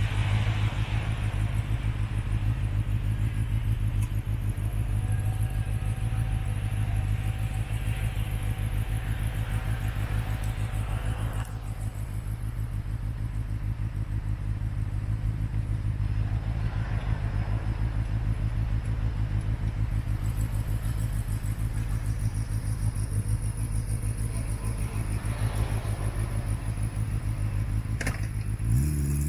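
A motor vehicle's engine idling steadily close by. Near the end it starts to rev up, its pitch rising as it pulls away.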